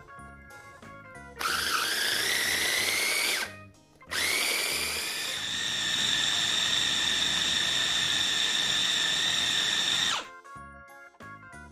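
Electric food chopper motor running in two bursts, about two seconds and then about six, its whine rising as it spins up and then holding steady while the blades grind raw chicken with onion, egg and carrot. Light background music plays before and after.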